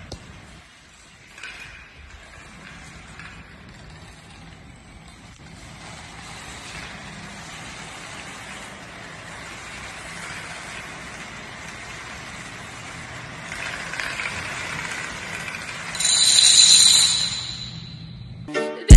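A large spiral of playing cards toppling one after another in a chain, a steady soft rattle of falling cards that grows gradually louder. Near the end a loud high-pitched ringing tone sounds for about a second and a half.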